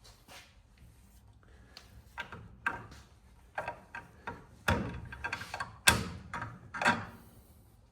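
Irregular metal clanks and knocks as a stuck brass fitting clamped in a bench vise is pried and pulled at. The fitting is seated too tight to pop off. The knocks come sparsely at first, then grow denser and louder in the second half, the sharpest about six seconds in.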